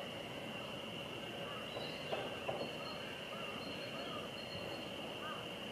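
Outdoor spring ambience: small birds chirping now and then over a steady high-pitched hiss or hum, with a few soft knocks about two seconds in.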